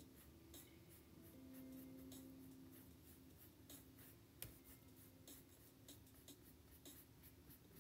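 Faint scratching of a paintbrush's bristles on canvas, as short irregular strokes of acrylic paint with a sharper tick about four and a half seconds in. Faint steady low tones, like soft music, sit underneath.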